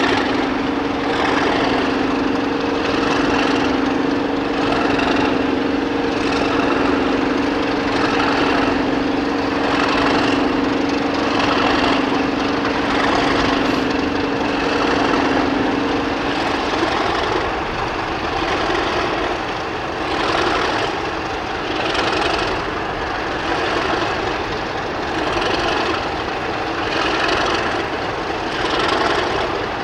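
A pair of Class 31 diesel locomotives, with English Electric V12 engines, idling at a standstill. The engine noise pulses about once a second. A steady hum runs alongside and stops about halfway through.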